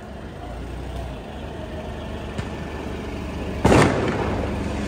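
Heavy armoured police vehicle's engine running with a steady low rumble, cut through by a single sharp, loud bang about three and a half seconds in.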